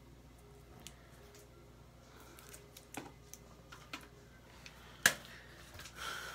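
Light plastic clicks and taps of makeup items being handled and set down, with one sharp click about five seconds in.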